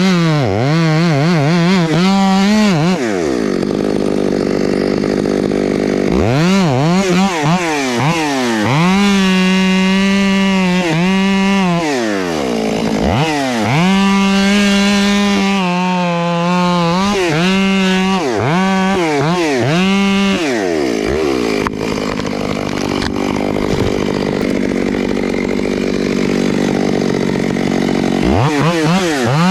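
Two-stroke chainsaw run at full throttle. It drops back and revs up again several times, and in two longer stretches, around 3 to 6 s and 21 to 28 s, its note blurs under load as the chain cuts into timber.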